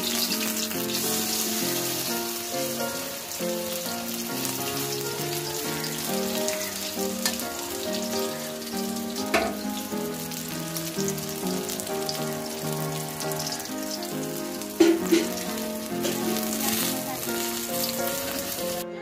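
Rice-batter-coated pumpkin flowers shallow-frying in oil in a kadai, a steady sizzle, with a couple of sharp knocks about nine and fifteen seconds in. Background music plays underneath.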